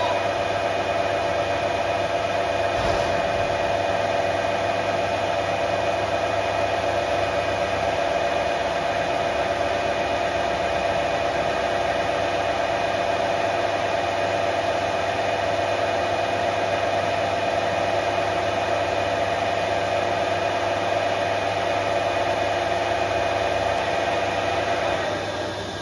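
Metal lathe running, its spindle turning a tractor steering joint while the tool cuts back the worn, pitted seal surface. It makes a steady whine over a low hum, which dies away about a second before the end.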